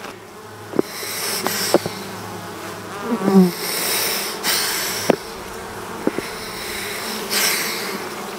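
Honey bees buzzing steadily around an open hive, with one bee passing close by about three seconds in, its buzz rising in pitch. A few short hisses and light clicks sound over the buzzing.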